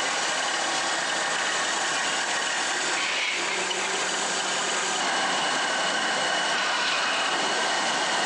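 Metal-spinning lathe running steadily while a hand-held cutting tool shaves curls of metal off a spinning pressure-cooker part, a continuous machine and cutting noise.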